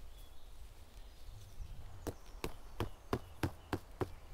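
Tent stake being knocked into the ground: a quick run of about seven sharp knocks, roughly three a second, starting about two seconds in.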